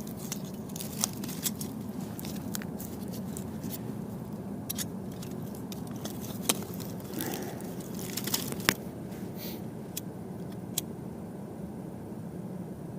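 Scattered sharp clicks and crackles from birch bark and pine cones in a small wood-burning camp stove as it is being lit, over a steady low hum. The clicks thin out near the end.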